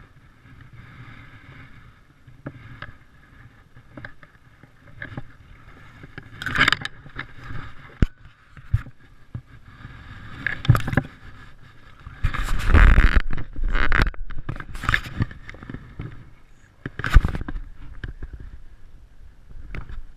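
Scattered rustles, bumps and scrapes close to a wearable camera's microphone as it moves through shoreline grass and reeds, with a longer, louder stretch of rustling about twelve to fourteen seconds in.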